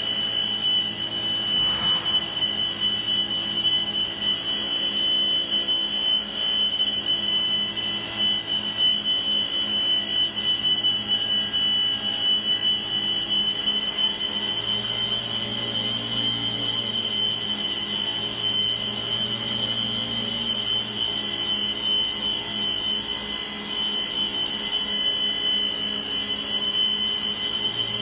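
XCORT electric circular saw running continuously with no load, a steady high-pitched motor whine that holds the same pitch throughout. It is being left running in a run-time endurance test.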